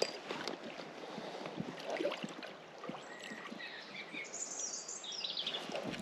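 River water running and lapping, with small splashes, and a small bird chirping briefly about four to five seconds in.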